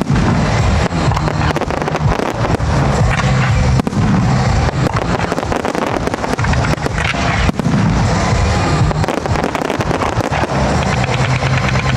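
Aerial fireworks display: shells bursting and popping in quick succession, mixed with background music that has a steady low bass.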